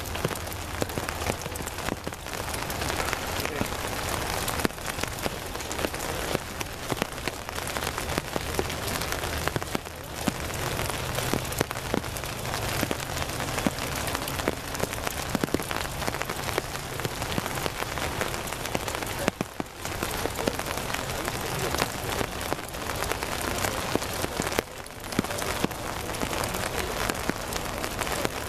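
Steady rain, with a dense ticking of drops on umbrellas and wet ground.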